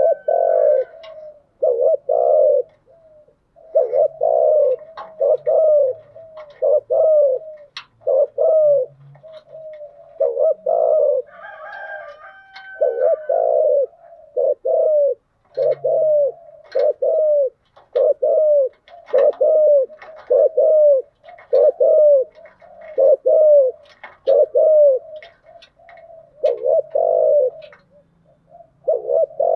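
Spotted dove cooing over and over in quick runs of short, low coos, about one or two a second, broken by brief pauses: the excited cooing and calling of a dove used as a lure recording.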